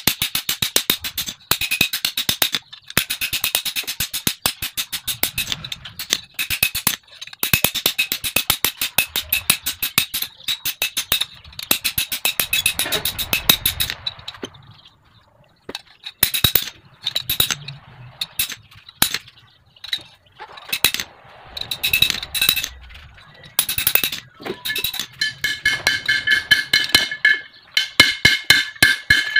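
Hand hammer striking a bearing-steel knife blank on a steel anvil block, in rapid runs of several blows a second, each ringing with a high metallic tone. There is a short lull about halfway, and the blows near the end ring more strongly.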